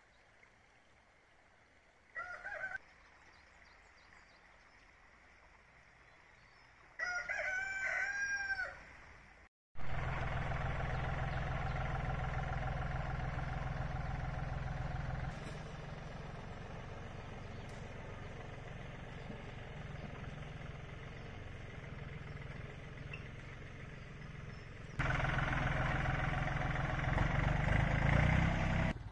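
A rooster crows once, after a shorter chicken call a few seconds earlier. Then a farm tractor's engine runs steadily as it drives along, louder in the last few seconds.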